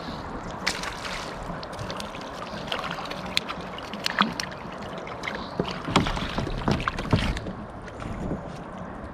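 Noises on a fishing kayak: a steady wash of water noise with scattered clicks and knocks on the hull. A cluster of heavier knocks and thuds comes about six to seven seconds in.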